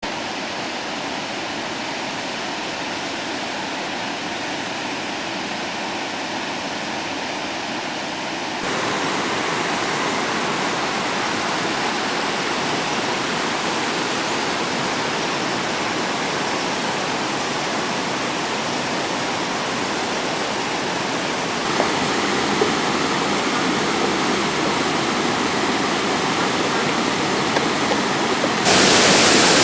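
Travertine waterfalls: a steady rush of falling water with no pitch to it. It jumps abruptly louder and brighter three times, about a third of the way in, past two thirds, and again near the end.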